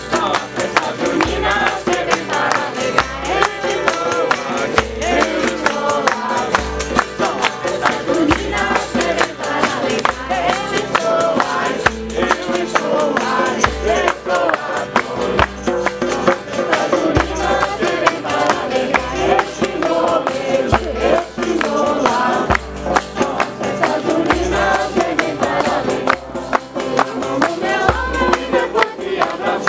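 A group of voices singing a festa junina song together, over rapid rattling percussion and a low beat about once a second.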